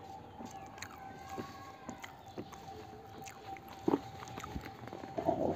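Mouth sounds of someone eating rice by hand, picked up close on a clip-on mic: chewing and lip smacks with small clicks, two sharper clicks near the end, over a faint steady hum.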